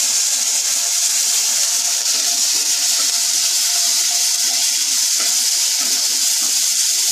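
Ginger paste, turmeric and cumin seeds frying in hot mustard oil in a kadai: a steady sizzle, with the wooden spatula stirring them through the oil.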